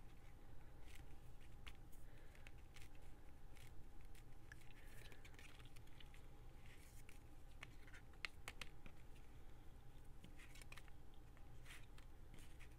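Faint handling of paper and fabric at a craft table: scattered small taps, clicks and scratchy rustles, over a low steady hum.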